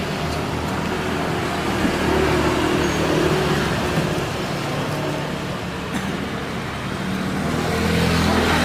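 Road traffic: motor vehicle engines running close by, a steady low hum that swells twice, most near the end, with a faint click or two.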